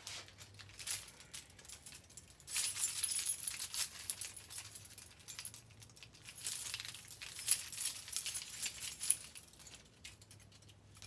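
Small hard objects clinking and rattling as they are handled, with bursts of scraping and rustling, the loudest about a third of the way in.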